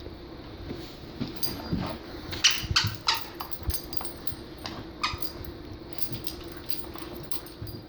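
A dog giving a few short, high cries, a cluster two to three seconds in and another about five seconds in, over a steady low hum.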